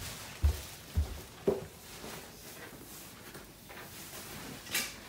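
Footsteps on a hardwood floor: three low thuds about half a second apart, then quieter shuffling with a brief hiss near the end.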